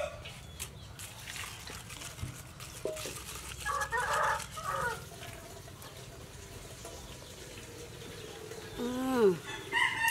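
A rooster crows about four seconds in, and chickens cluck around it.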